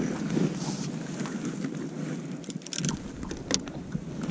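Wind buffeting the microphone on a small boat, with a few sharp clicks and knocks near the end.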